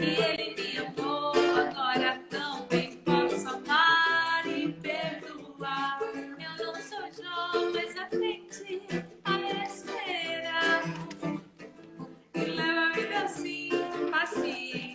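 Acoustic worship song performed live: strummed and plucked acoustic guitar accompanying sung melody lines.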